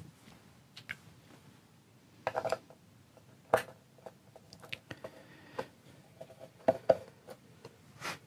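A screwdriver backing out the small screws of the rear cover plates on a Taylor Solidbody guitar body: scattered light clicks and taps of metal on screw heads and of the plates and screws being handled.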